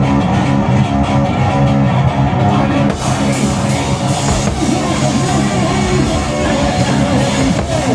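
Live noise rock: a loud, distorted bass guitar riff, with the drum kit and cymbals crashing in about three seconds in.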